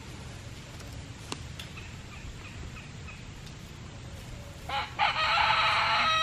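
Chickens foraging with a few faint soft clucks, then near the end a rooster crows loudly: a brief stutter followed by one long drawn-out crow.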